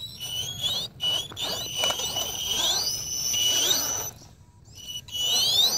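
Electric whine and chirping from a motor-on-wheel RC rock crawler's four sensorless brushless quadcopter motors under throttle, with several rising whines that step up in pitch as the motors speed up. Tyres scrabble on rock underneath, and the sound drops away briefly a little past the middle.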